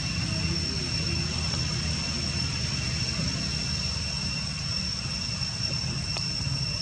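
Steady outdoor background rumble, with a constant thin high whine at two pitches on top.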